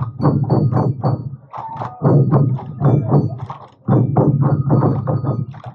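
Massed sansa taiko drums, carried and beaten in unison by parading dancers, in a fast steady rhythm of about four to five strikes a second, pausing briefly twice between phrases.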